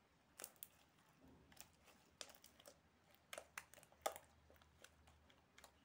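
Glittery slime squeezed and pressed by hand, giving a string of faint, irregular sharp clicks and pops as air pockets in it burst, the loudest a little past the middle.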